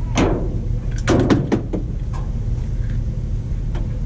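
Clacks, taps and a short scrape from a work light's magnetic base being set and shifted against the sheet metal under a truck hood: a scrape right at the start, then a quick cluster of sharp knocks about a second in, and a few lighter ticks later. A steady low hum runs underneath.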